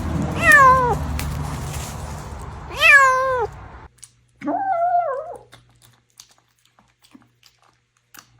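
A cat meowing three times. The first two meows fall in pitch over a steady background noise, which cuts off abruptly just before the third, flatter meow.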